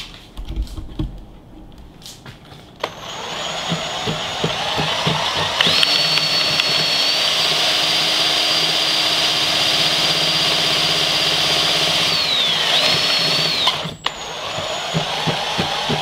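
Electric drill spinning a ceiling-fan motor converted into a neodymium-magnet alternator that is lighting a bulb. The drill starts about three seconds in and settles into a steady whine, slows and cuts off briefly near the end, then runs again.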